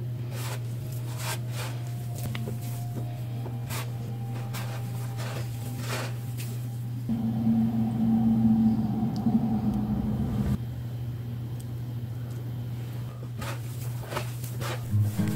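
Hands rubbing and crumbling sandy biscuit dough on a wooden board, with soft scattered crackles and rustles over a steady low hum. The hum grows louder, with a higher tone, for a few seconds in the middle.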